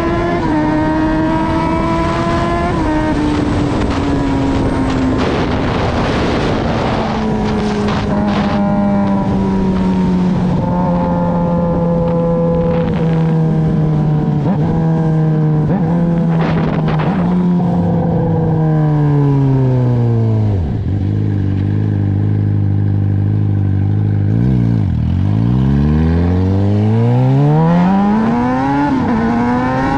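Suzuki GSX-R600's inline-four engine running under way. Its pitch sinks slowly over the first twenty seconds, sits low for a few seconds with two brief dips, then climbs steadily as it picks up revs near the end.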